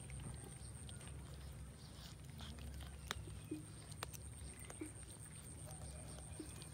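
A group of kittens eating cooked rice from a metal tray: faint scattered chewing and lapping with small clicks, and two sharper clicks about three and four seconds in, over a low steady rumble.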